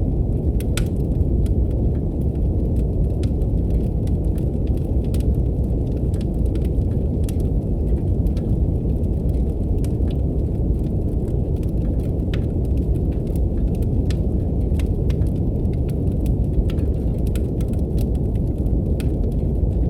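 Brown noise: a steady, low, deep hiss with no change in level. Over it, the irregular sharp pops and crackles of a wood fire burning in a fireplace.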